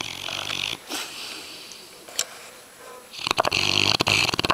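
Yellow Labrador retriever snoring loudly. A short fluttering snore comes at the start, then a longer, louder one from about three seconds in.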